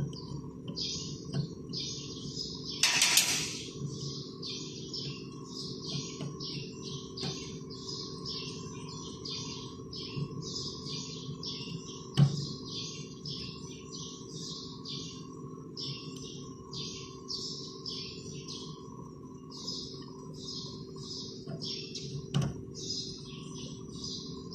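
Small birds chirping rapidly and continuously over a steady low hum and a faint steady whine, with a short hiss about three seconds in and two sharp knocks.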